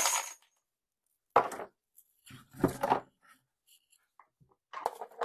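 Brass .45 Colt cases finish clattering into the plastic bowl of a vibratory case tumbler, dying away about half a second in. Then come a few separate knocks and rattles of the plastic lid being handled and fitted, the loudest a sharp knock about a second and a half in.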